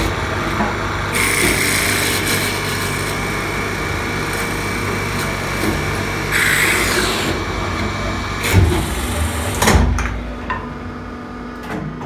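Restored Hempel VK10 woodworking machine running in automatic mode, its 5.5 kW motor humming steadily under long stretches of loud cutting noise. Two heavy knocks come near the end of the cycle, after which the machine runs quieter.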